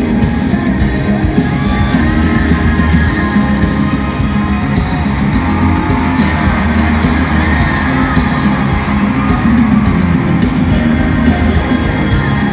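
Loud live pop-rock concert music through an arena sound system: heavy bass and drums with electric guitar, a singing voice over it, and crowd yells in a large, reverberant hall.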